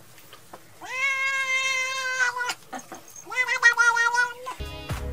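Tabby cat meowing: two long, drawn-out meows, the first about a second in and the second shorter, each rising at the start and then holding steady. Music with a beat cuts in just before the end.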